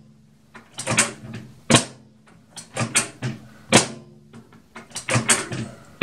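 Magic Chef microwave's door latch, door-release button and interlock switches clicking and clacking as the door is popped open and shut, a series of sharp clicks a second or so apart. It is a test that the newly replaced door interlock switch no longer shorts the line when the door opens.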